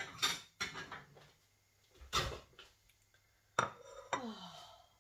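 Kitchen utensils clattering against a crêpe pan and the counter in several separate knocks and rattles, with a short sound falling in pitch near the end.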